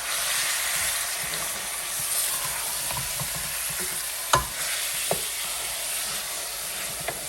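Chicken mince sizzling as it fries in oil in a pan while it is stirred. There is one sharp knock about four seconds in and a few lighter clicks after it.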